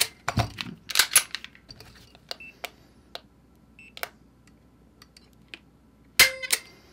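Ruger LCP Max trigger being pulled with a digital trigger pull gauge: scattered small clicks and ticks as the gauge hook and pistol are handled, then near the end a sharp snap as the trigger breaks and the internal hammer falls, together with a short beep from the gauge.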